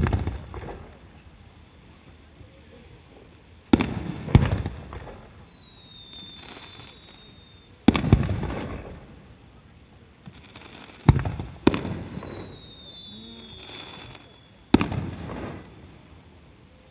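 Aerial firework shells bursting: about seven sharp bangs, some in quick pairs, each trailing off in a rolling rumble. Twice a high whistle slides slowly down in pitch for a few seconds between the bursts.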